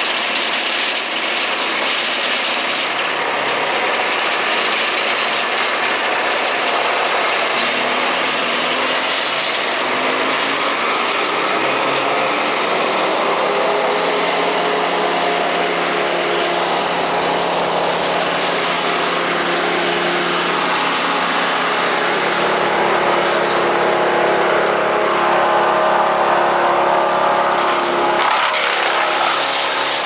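Vermeer BC1000 brush chipper's engine running loud and steady; its revs climb over a few seconds about a third of the way in and then hold at high speed, with a brief dip near the end.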